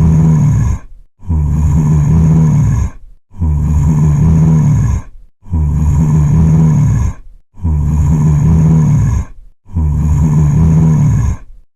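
Zombie groan sound effect: one low, rasping groan looped over and over, about one every two seconds with a brief pause between repeats.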